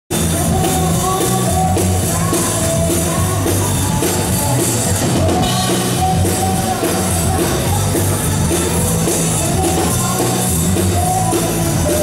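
Rock band playing live, with a repeating bass line under held melodic notes.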